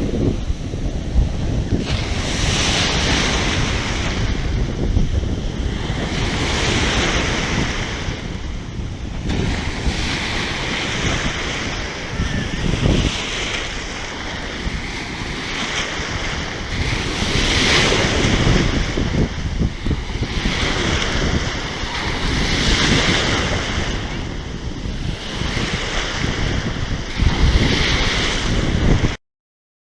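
Sea waves surging and washing, with strong wind buffeting the microphone; the wash swells and falls back every few seconds, then cuts off abruptly near the end.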